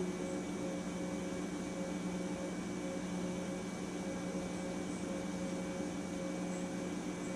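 Drive motor of a CNC-retrofitted Bridgeport Series I milling machine jogging the table slowly along one axis: a steady hum made of several fixed tones over a low hiss, with no change in pitch.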